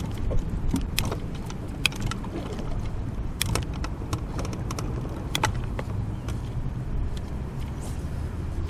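Steady low rumble of a boat's motor, with scattered sharp clicks and knocks from tackle and gear being handled in the boat.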